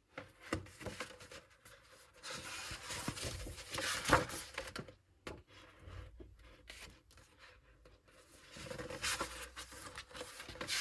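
Pages of a photo book being turned and handled: paper rustling in two stretches, with a sharper tap about four seconds in.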